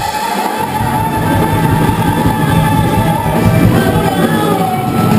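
Live band playing loud amplified music, with electric guitars, drums and a singer.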